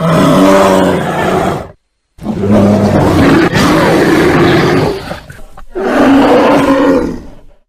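Bear roaring in three long, deep roars. The first cuts off sharply into a brief silence just under two seconds in, the second runs to about five seconds, and the third fades out near the end.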